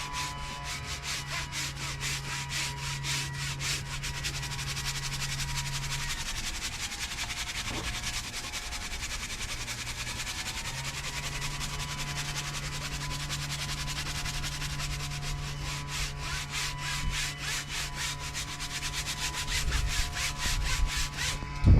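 A hand brush scrubbing cleaner-soaked seatbelt webbing in rapid back-and-forth strokes, scrubbing the dirt out of the belt.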